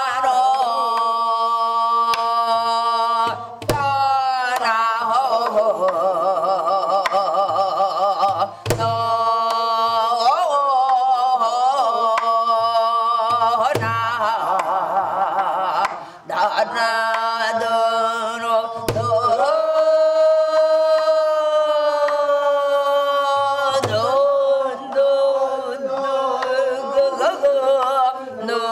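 Pansori singing: one voice with very wide, wavering vibrato and long held notes, marked by low buk drum strokes about every two to three seconds.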